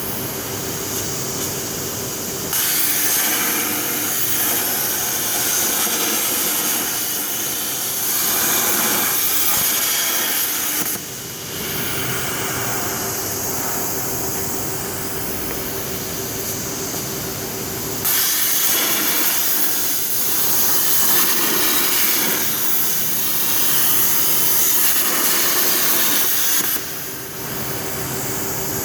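CNC plasma torch cutting 4 mm steel plate: a loud, harsh hiss of the cutting arc that starts abruptly a few seconds in, drops briefly near the middle and cuts off suddenly shortly before the end. Underneath runs a steady machine hum with a constant tone.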